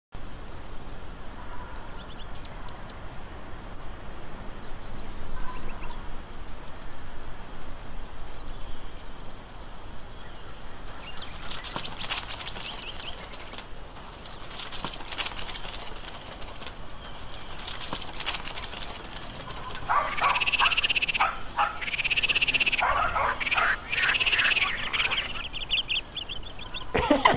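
Animal calls in an outdoor soundscape: faint high chirps for the first few seconds, then bouts of fast rattling trills, and from about twenty seconds in louder, repeated arching calls, like a chorus of croaking frogs.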